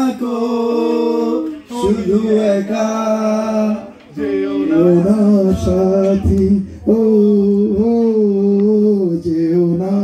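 A man singing a song unaccompanied into a microphone, held melodic notes with short breaths between phrases, amplified through the hall's loudspeakers.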